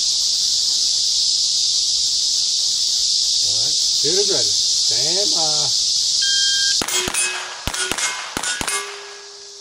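Loud steady insect chorus, with a few squealing calls midway. About seven seconds in comes a rapid string of sharp .22 pistol shots and steel targets clanging, and one plate is left ringing near the end.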